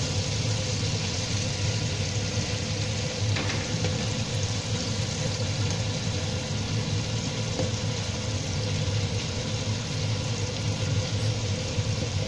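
Chicken pieces deep-frying in a pan of hot oil: a steady, dense sizzle with a steady low hum beneath it.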